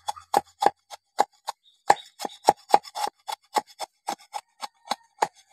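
Knife blade chopping into thin wooden strips on a wooden board in quick, even strokes, about three to four a second.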